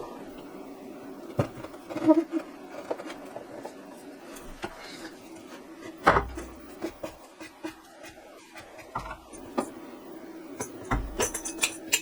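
Scattered knocks, clicks and clatter of hard objects being handled and set down, loudest about two seconds in, around six seconds in and near the end, over a steady low hum.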